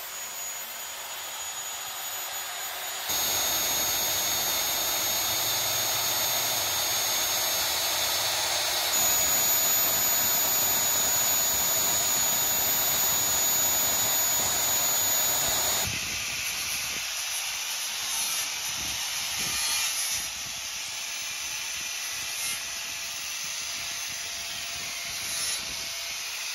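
Heavy electric drill running under load, boring bolt holes through the vehicle's steel chassis frame for the bumper's size 16 mounting bolts: a steady grinding noise with a thin high motor whine. The sound jumps in level a few seconds in and turns quieter about two thirds of the way through.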